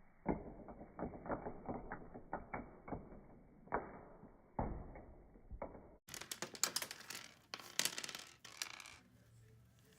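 Butter slime being squished and stretched by hand, giving irregular sticky clicks and pops. The sound turns brighter about six seconds in.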